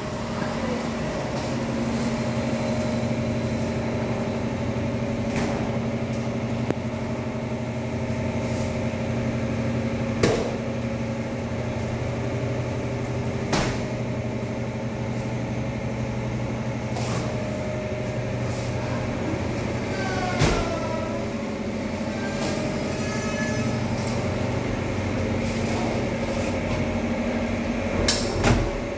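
uPVC doors and sliding windows being opened and shut, with several sharp knocks and clicks of sashes and latches meeting the frames and a few brief squeaks about two-thirds through, over a steady mechanical hum.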